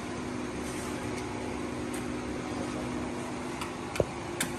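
Steady mechanical hum of a small electric fan running, with a sharp click about four seconds in and a lighter click just after.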